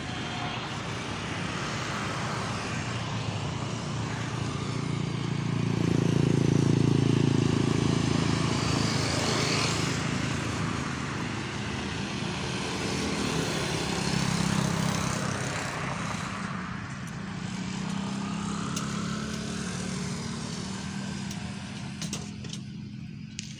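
Motor vehicle engines passing one after another, the hum swelling and fading, loudest about six to eight seconds in.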